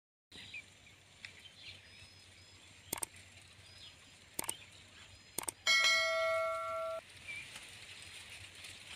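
Three mouse-click sound effects, then a bell-like notification chime about six seconds in that rings on a few steady tones for about a second and stops: the sound effect of a like-and-subscribe button animation. Faint bird chirps in the background.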